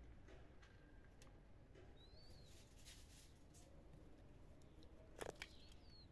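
Faint crunching of dry kibble as stray cats eat from plastic bowls: scattered small clicks, with one sharper click about five seconds in. A small bird chirps briefly twice, high-pitched.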